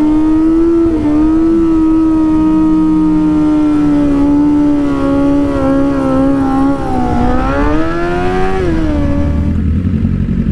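Sportbike engine held at high, nearly steady revs through a long wheelie, with road and wind noise underneath. About seven seconds in the pitch dips and climbs again, then it drops away near the end as the throttle closes.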